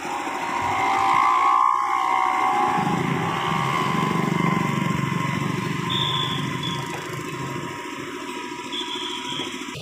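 SANY SY215C hydraulic excavator's diesel engine running under load with a steady whining tone from the hydraulics as the arm curls in. The sound swells about a second in and eases off after about six seconds.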